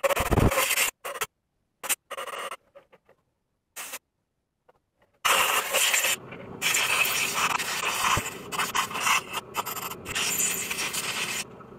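Metal scraping and rubbing as a screwdriver works on the body of a TMX Supremo 150 motorcycle carburetor being cleaned. There are short scrapes in the first few seconds, then a longer, steadier stretch of scraping and handling from about five seconds in.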